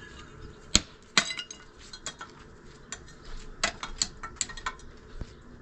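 Sharp clinks and knocks of hard objects striking each other: two loud strikes about a second in, then a quick run of lighter clinks a little later.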